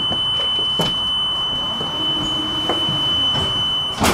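A tram's door warning tone: one steady high beep, cut off about four seconds in by a loud knock as the doors shut, after which the surrounding noise drops.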